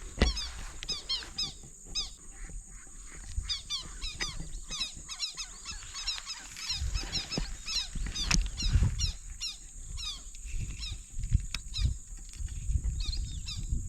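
Birds calling over and over in short, falling chirps, over a steady high hiss, with low rumbles coming and going, heavier in the second half.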